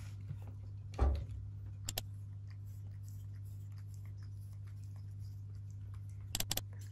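Cats pawing and biting at a foam floor mat: a soft thump about a second in, a couple of light ticks, and a quick cluster of clicks near the end, over a steady low hum.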